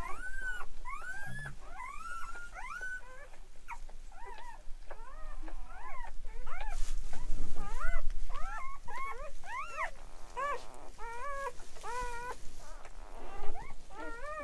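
Newborn Great Pyrenees puppies whimpering: a long run of short, high, squeaky cries, each rising and falling in pitch, coming one after another.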